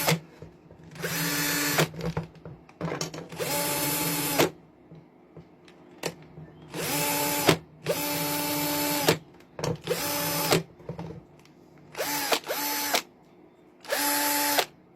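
Promaker cordless drill's motor run in about nine short bursts, each spinning up, holding briefly and winding down, as the drill is tested on its repaired battery pack.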